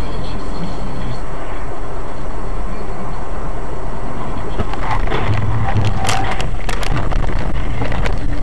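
Steady road and engine noise of a moving car. From about five to seven and a half seconds in comes a cluster of sharp bangs and crunches: a vehicle collision.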